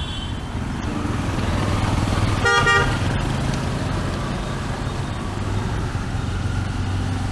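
Street traffic passing close: a green CNG auto-rickshaw's small engine running as it drives by, over a steady engine rumble. A vehicle horn gives one short blast about two and a half seconds in, after a brief higher beep right at the start.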